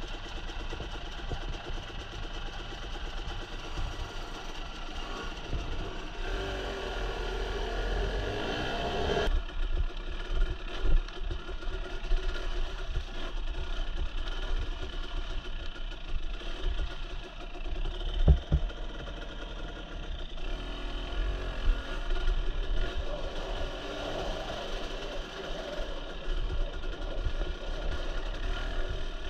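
Dirt bike engine running, its pitch rising and falling with the throttle over rough rocky ground, with one sharp knock about eighteen seconds in.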